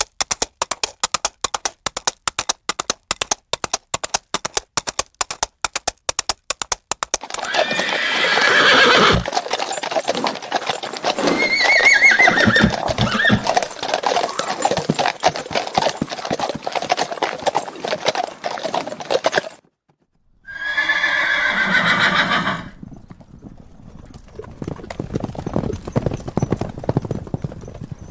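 Horses galloping: at first a fast, even drumming of hoofbeats, then a denser pounding of hooves broken by neighs, one about eight seconds in and one around twelve seconds. After a short break near twenty seconds comes another whinny, and softer hoofbeats follow near the end.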